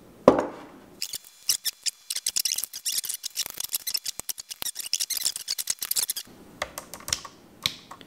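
A glass jar full of loose plastic keycaps set down on a wooden table with a single knock, then several seconds of dense clattering as the keycaps rattle and are picked through. Near the end a few separate clicks as keycaps are pressed back onto the original iMac keyboard.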